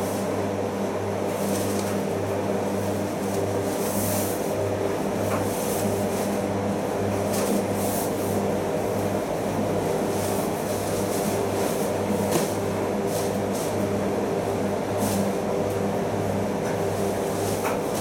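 Primus FX105 commercial washing machine tumbling a duvet in its final rinse: a steady motor hum that pulses in level, with water sloshing and splashing in the drum.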